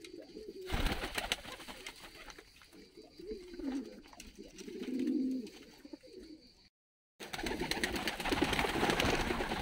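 Domestic pigeons cooing, low wavering coos one after another. After a short dropout about seven seconds in, the sound turns louder and busier, with cooing under a rustle of wings.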